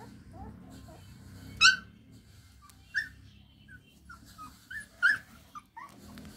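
Young puppies whining and yelping in short high squeaks, a string of them with a few much louder yelps scattered through.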